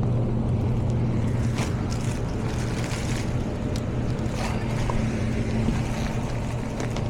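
Running HVAC equipment: a steady low electrical hum under a constant rush of air, with a few faint light clicks.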